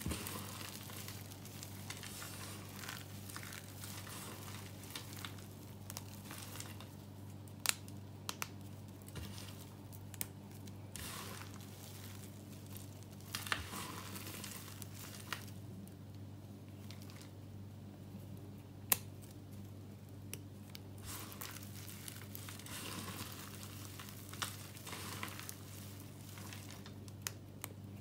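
Dry, varnished soap chips being crushed and crumbled between the hands: a continuous crackling rustle with scattered sharp snaps as pieces break.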